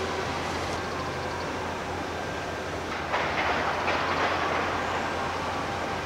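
Steady low background hum of traffic, with a louder rolling, rumbling vehicle noise passing from about three seconds in.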